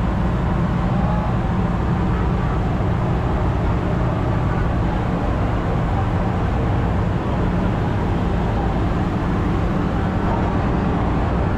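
Steady low drone of a large ferry's engines and machinery on its vehicle deck, running evenly without change.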